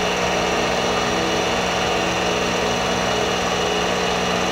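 Benchtop mini mill running steadily, its spindle motor giving a constant hum of several tones over a hiss, while the cutter takes a light finishing pass of a few thousandths across a small T-slot nut.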